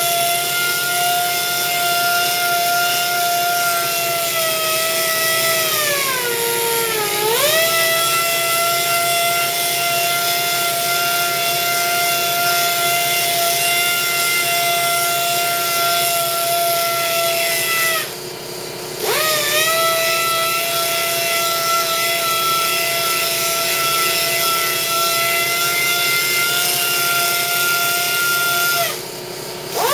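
Small air-powered polisher with a foam pad running with a steady high whine over air hiss while buffing painted metal. Its pitch sags briefly and recovers about six seconds in. It cuts out twice, near the middle and just before the end, spinning back up in pitch each time.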